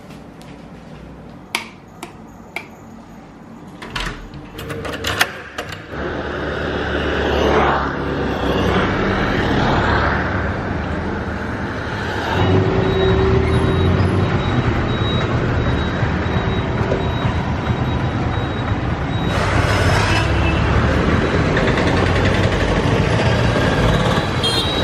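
A few sharp taps and clicks at first. Then, from about six seconds in, steady road traffic with motorbikes and other vehicles passing on a town street, louder again after about twelve seconds.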